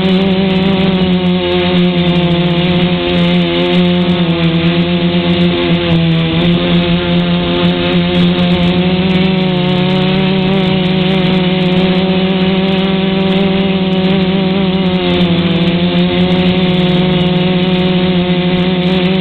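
DIY quadcopter's brushless motors and 10-inch propellers buzzing steadily in a hover, heard up close through the camera mounted on the frame. The pitch wavers and dips briefly twice as the motors adjust.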